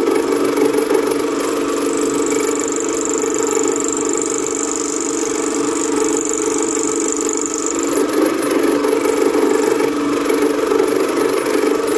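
Komunar 2M112 belt-driven bench drill press running at about 1400 rpm, milling a keyway into a steel shaft with a small cutter in its chuck: a steady machine drone, with a high whine from the cut from about two and a half seconds in until about eight seconds in.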